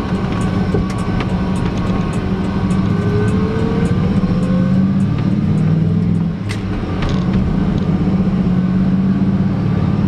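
1994 Ford F150's 5.0 V8 engine pulling away under acceleration, heard from inside the cab. About six seconds in the note dips briefly and drops in pitch as the five-speed manual is shifted up, then it pulls again.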